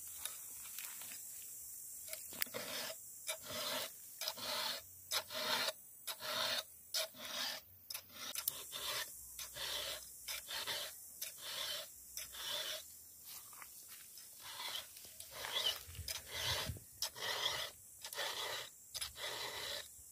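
Round file rasping across the cutters of a Stihl chainsaw chain in short strokes, about two a second: the chain being sharpened by hand.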